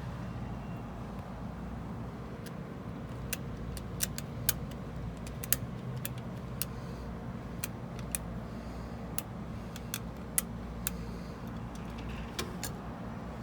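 A steady low mechanical hum with a scatter of sharp, irregular clicks.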